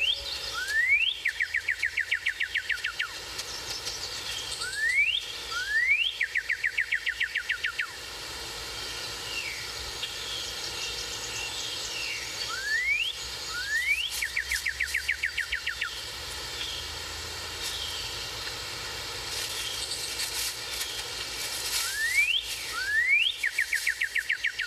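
A bird singing a repeated phrase: one or two rising whistles followed by a fast run of about a dozen short, even notes, heard four times, with fainter chirps of other birds in between.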